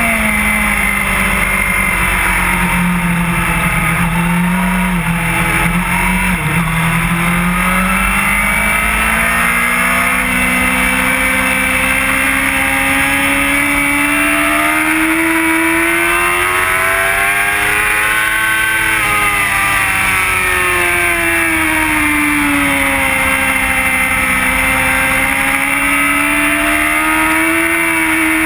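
Inline-four sportbike engine at track pace, heard from on the bike with rushing wind. The revs drop over the first few seconds, climb to a peak about two-thirds of the way through, fall again, then rise once more near the end.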